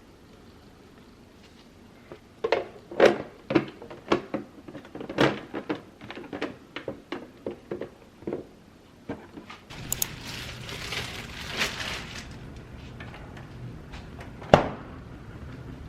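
Items being handled and set down, a quick run of sharp clicks and knocks of hard objects. About ten seconds in, a steady hiss with a low hum under it begins, and one loud knock comes near the end.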